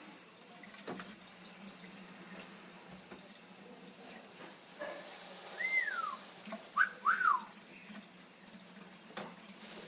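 Amazon parrot whistling: one note that rises then slides down, then two short falling notes just after, over a tap running faintly.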